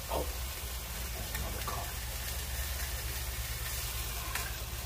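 Steady hiss of a gas-canister camp stove burning under a nonstick pan, with two burger patties frying in it. A few faint clicks as the patties are moved in the pan.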